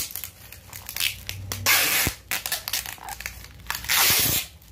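Thin plastic bag crinkling and rustling in bursts as it is handled and wrapped around an item for packing, loudest about one and a half seconds in and again near four seconds.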